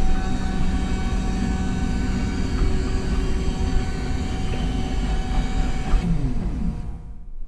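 Electric drive of a motorized Ori furniture unit running as the unit travels, a steady mechanical hum with a few held tones over a low rumble. It dies away about six to seven seconds in.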